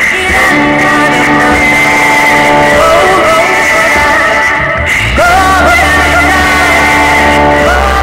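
Live band music: a woman singing over electric guitar, with long held notes. About five seconds in her voice slides up and down, and a deep low note comes in and holds.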